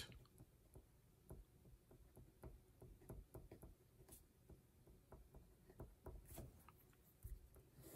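Faint scratching and ticking of a marker pen writing on paper, a quick series of short soft strokes.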